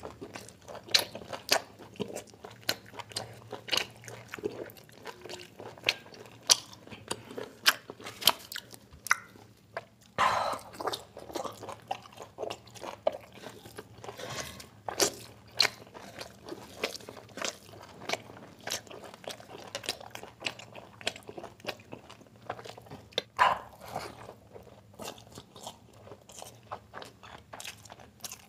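Close-miked chewing of mutton biryani and curry: a steady, irregular run of wet mouth clicks, lip smacks and bites, with fingers working the rice between mouthfuls.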